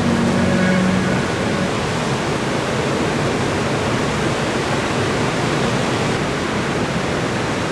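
Steady rushing noise of breaking ocean surf, with the last notes of music fading out in the first second.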